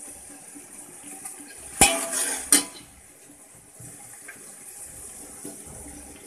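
Chopped onions and bay leaves sizzling steadily in hot oil in a steel pot while a metal spoon stirs them. About two seconds in, the spoon knocks loudly against the pot twice with a clatter between.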